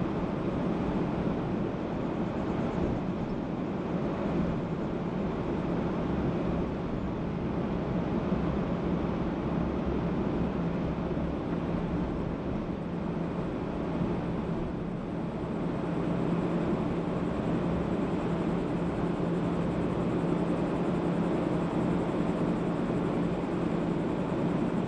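Car driving at a steady pace: continuous road and engine noise with a steady low hum.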